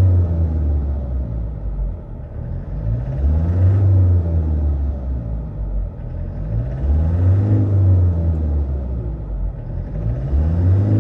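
Toyota Hilux diesel engine running, its note swelling and easing in a repeating cycle about every three and a half seconds during an injector test after an injector was refitted for a cylinder 1 misfire. It still sounds rough, which the mechanic takes as a sign the test will fail.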